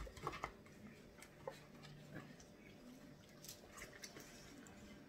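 Faint small cracks and clicks of crab-leg shells being broken and picked apart by hand, a few sharper ones near the start.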